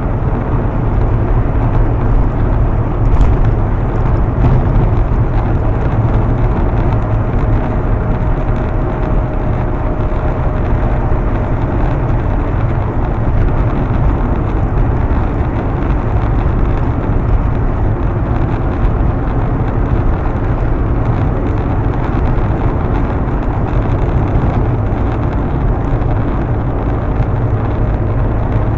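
Steady low rumble of tyres, engine and wind from inside a car cruising on a highway, picked up by a dashcam microphone. A faint thin whine comes and goes in the first half.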